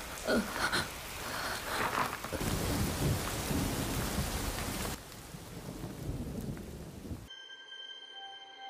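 Rainstorm: heavy rain falling with a low rumble of thunder under it. About seven seconds in the storm cuts off abruptly, leaving only faint steady high tones.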